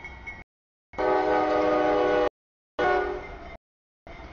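CSX freight locomotive's multi-note air horn blowing the grade-crossing signal: the tail of one long blast, another long blast about a second in, a short blast, and the start of the final long blast near the end.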